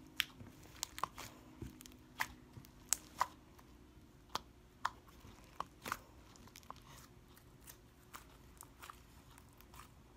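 Stiff homemade slime being squeezed and kneaded by hand, giving irregular sharp clicks and pops about twice a second, louder in the first half. This clicking is typical of a hard slime that won't stretch.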